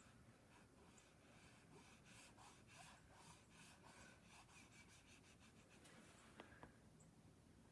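Faint scratching of a pastel stick rubbed over drawing paper in quick, repeated strokes, about five a second. A couple of light clicks come near the end.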